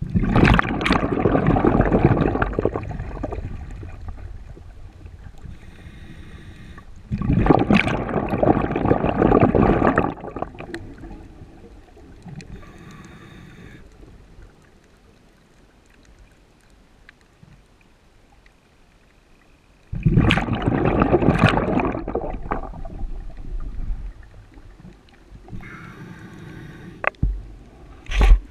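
Scuba diver breathing through a regulator underwater: three long bubbling rushes of exhaled air, about three seconds each and fading, come at the start, about seven seconds in and about twenty seconds in. Faint short hisses of inhalation through the regulator fall in the quiet stretches between.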